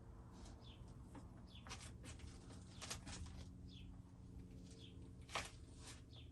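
Faint bird chirping: short falling notes about once a second, over a low steady hum, with a few light clicks and one slightly louder knock about five seconds in.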